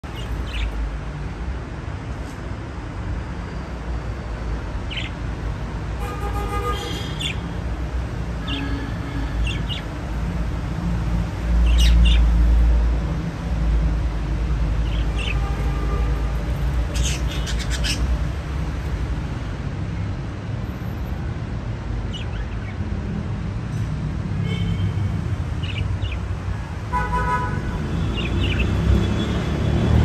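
Pet budgerigars giving short, scattered chirps, a few at a time, over a steady low rumble that swells briefly about twelve seconds in.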